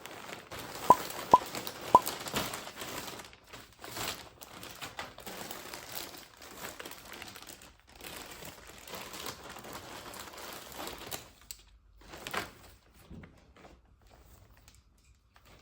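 Crinkling and rustling of packaging being handled, irregular and close, dying down after about eleven seconds. About a second in come three short, sharp, ringing ticks, the loudest sounds.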